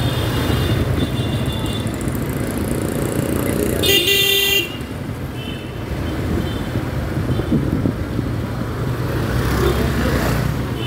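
Motorcycle engine running steadily while riding through busy street traffic, with vehicle horns honking. One loud horn blast lasts about half a second, about four seconds in, and several shorter, fainter toots come before and after it.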